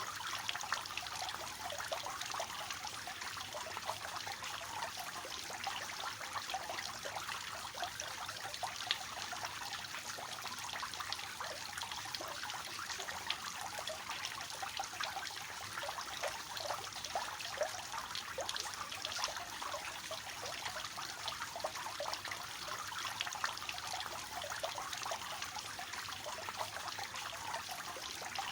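Water splashing and trickling steadily down the tiers of a three-tier cascading fountain, a dense patter of small splashes without pause.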